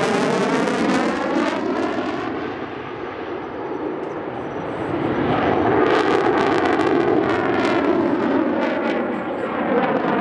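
Saab JAS 39 Gripen fighter's Volvo RM12 jet engine, loud overhead, with a sweeping, phasing tone as the jet moves. The noise dips a couple of seconds in, then swells again with a crackle in it.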